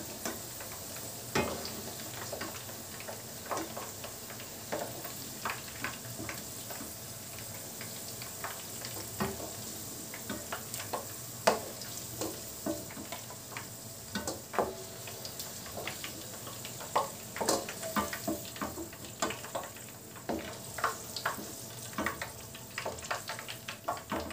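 Potato cubes sizzling in hot oil in a nonstick frying pan, with frequent light taps and scrapes of a wooden spatula against the pan as the fried pieces are lifted out.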